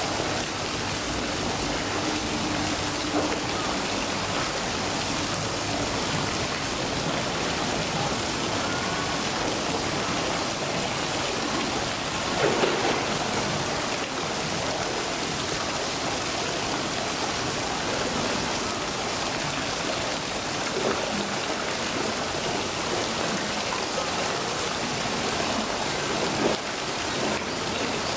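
Steady rush of falling or running water, with a brief louder sound about twelve seconds in and a smaller one near the end.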